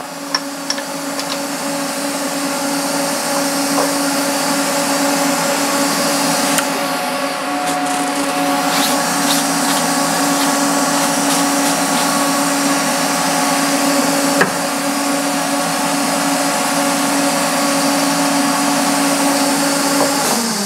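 Haas CNC milling machine running a machining cycle on an aluminium block: a steady spindle tone over a constant hiss with scattered small ticks. Near the end the spindle winds down with a falling pitch.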